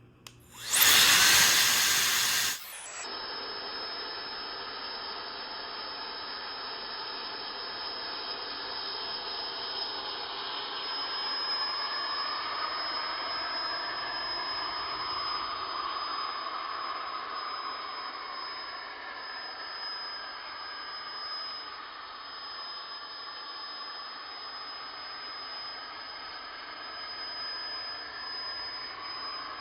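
An electric shop machine starts with a loud rush of noise lasting about two seconds, then runs steadily with a constant high whine over an even hiss.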